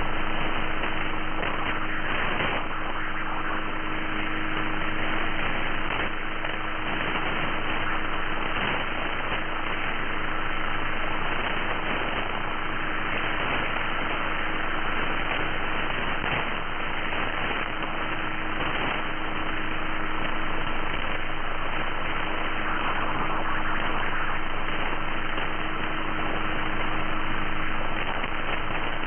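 Shortwave radio static from a software-defined receiver in upper-sideband mode on 5935 kHz: a steady hiss with a thin high whistle and a lower hum tone running through it.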